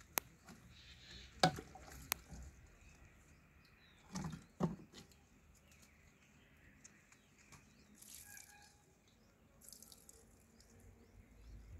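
A monkey handling a plastic water bottle: a few sharp clicks and crackles of the plastic in the first half, then fainter water sloshing and dripping as the bottle is tipped up to drink.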